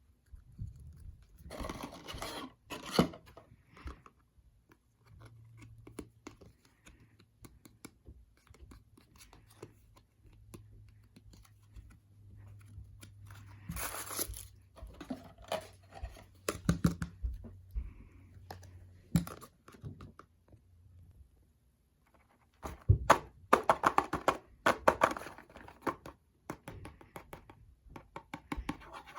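Plastic toy packaging being torn open and crinkled by hand, in several noisy bursts, with small clicks and handling knocks in between.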